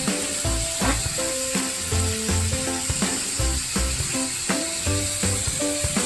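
Sliced garlic, onion and water spinach stems sizzling in hot oil in a wok, a steady frying hiss, under background music with a steady beat.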